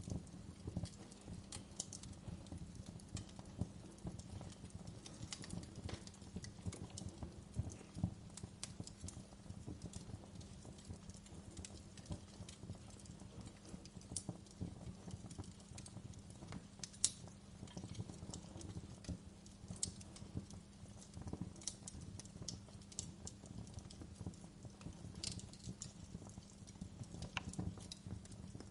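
Wood fire burning in a fireplace, crackling with irregular snaps and pops over a low, steady rumble. The sharpest pop comes about 17 seconds in.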